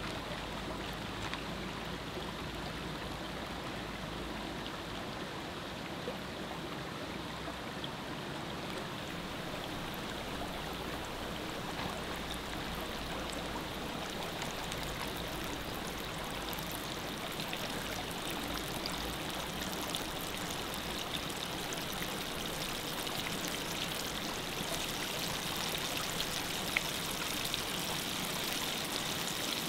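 Steady rush of a flowing river, with scattered faint ticks that come more often in the second half.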